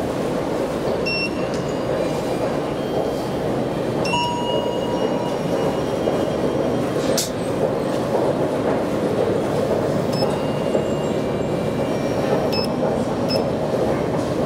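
Steady rushing background noise of an underground metro station, with faint brief high-pitched tones now and then and a single sharp click about seven seconds in.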